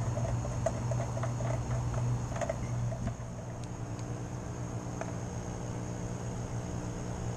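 A stick stirring nutrient solution in a plastic reservoir, making light quick taps for the first two or three seconds, over a steady low hum.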